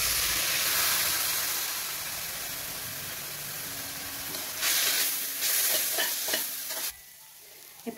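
Soy sauce and vinegar hitting a hot kadai of stir-fried vegetables and oil, sizzling suddenly and then slowly dying down. About four and a half seconds in, a spatula stirs the vegetables: the sizzle flares up again with scraping against the pan, then drops away about a second before the end.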